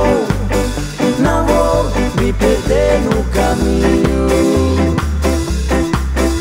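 Ska song playing, led by an electric bass (Fender Jazz Bass) on its two lowest strings. The notes are short and stopped, muted by the fretting fingers so they die away quickly, in imitation of an Ampeg Baby Bass. Above it the band plays a bending melody line.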